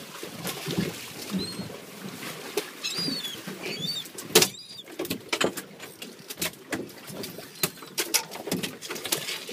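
Irregular clicks and knocks of rods, reels and tackle on a small fishing boat while bluefish are being reeled in, with a loud knock about four and a half seconds in. A handful of short high chirps sound now and then.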